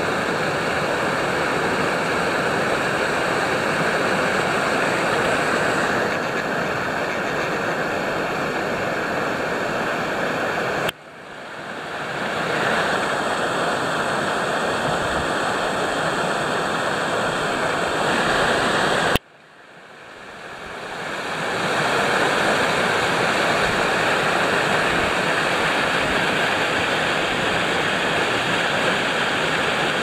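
Steady rush of a small waterfall splashing down rock steps into a pool. The sound cuts out abruptly twice, about a third and two-thirds of the way through, and swells back in over a second or two each time.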